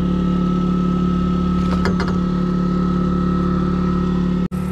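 Engine on a fishing boat running steadily at a constant speed: an even hum with a steady tone above it. It breaks off sharply for a moment just before the end.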